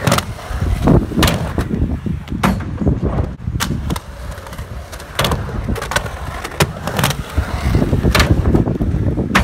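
Skateboard rolling on a ramp and concrete: a steady low rumble of the wheels, broken by several sharp clacks of the board and trucks striking the surface.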